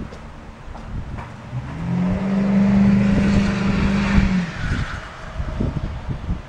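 Pickup truck accelerating past: its engine note climbs about a second and a half in, holds steady, then drops away about four and a half seconds in, with a rising hiss over it near the end. It sounded like a Ford 6.0 Power Stroke diesel with an aftermarket turbo blow-off valve, though it may just be how that engine sounds.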